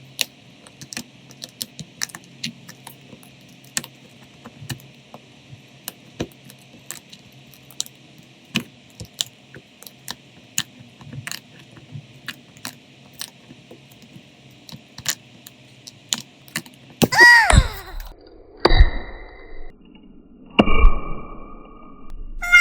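Small hand tools clicking and tapping on a smartphone during a repair: scattered light clicks over a faint steady hum. Near the end comes a sound with a falling pitch, then two sharper knocks, the second with a short ring.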